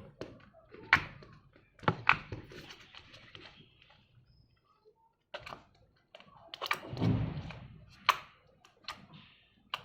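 Deflated fluffy slime being squished and pulled by hand: an irregular run of sharp pops and clicks between softer squishes.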